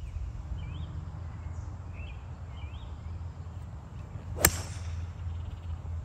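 A 3-hybrid golf club striking a ball off the fairway: one sharp crack about four and a half seconds in. Earlier, a few short bird chirps sound over a steady low wind rumble.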